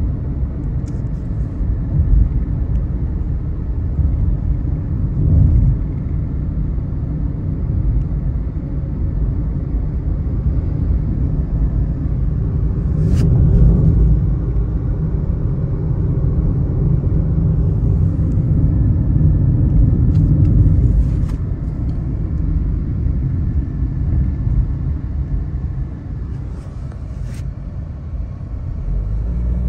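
A car driving along a road: a steady low rumble of engine and tyre noise, swelling a little about halfway through, with a few brief clicks.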